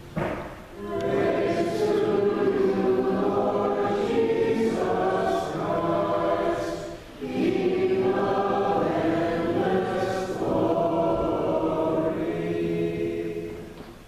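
A choir singing in church: two long phrases with a short break about seven seconds in.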